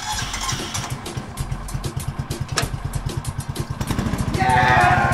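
Small engine of a green-and-yellow utility vehicle running with a quick, even putter that picks up pace. A voice calls out loudly over it near the end.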